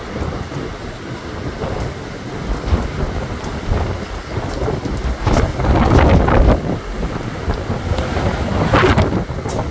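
Strong, gusty wind buffeting the microphone as a loud, low, noisy rush, swelling in gusts about five seconds in and again near the end.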